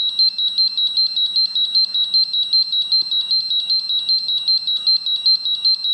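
Crowcon Gas-Pro portable gas detector sounding its alarm: a rapid, high-pitched beeping at about five beeps a second. The test gas from the cylinder has pushed its readings past the alarm levels during a bump test.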